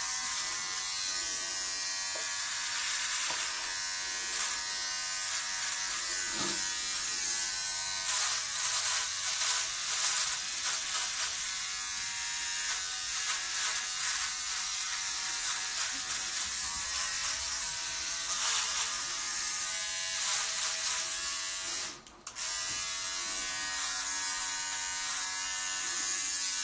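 Handheld electric trimmer running continuously as it trims hair around the ear and neck, a steady motor buzz that rises and falls a little in level. It cuts out for a moment about three-quarters of the way through, then resumes.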